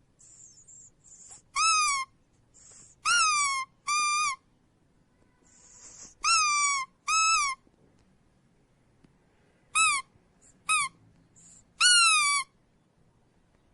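Squeaky dog toy squeezed again and again: about eight short, high-pitched squeaks, each bending up and then down, several coming in quick pairs. Soft hissing can be heard between some of the squeezes.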